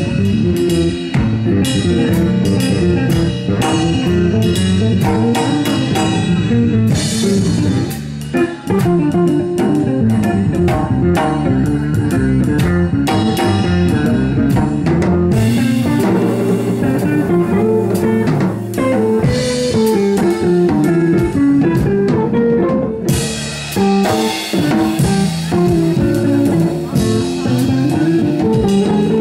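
Live jazz trio playing: drum kit with busy stick work on cymbals and drums, together with electric guitar and bass.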